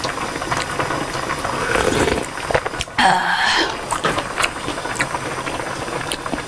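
Close-miked chewing and wet mouth sounds of someone eating a mouthful of rice wrapped in perilla-leaf kimchi, full of small clicks, with one louder, brief sound about three seconds in.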